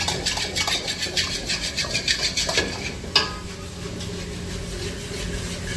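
Metal spatula scraping and clattering rapidly against a wok as the honey chilli potatoes are stir-fried, several strokes a second. A sharp clank about three seconds in, then the strokes give way to a steadier hiss.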